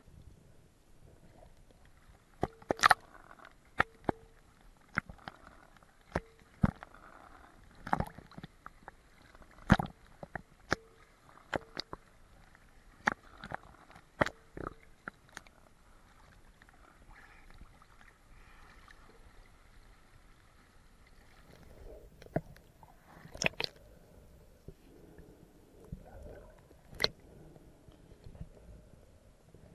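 Underwater sound heard through an action camera's waterproof housing: irregular sharp clicks and knocks over a low water hiss, thick in the first half, sparse in the middle, with a few more knocks near the end.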